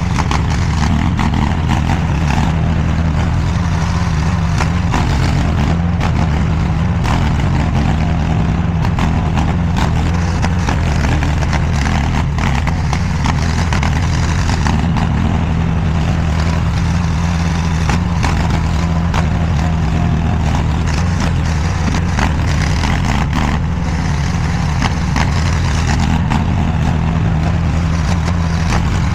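DIGGIT SCL850 stand-behind mini skid steer's engine running steadily at working speed, with scattered clicks and knocks.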